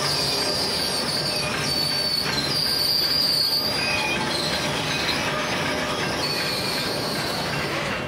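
Grain hopper wagons of a freight train rolling past with a steady rumble, their steel wheels squealing on the rails in high-pitched tones that come and go.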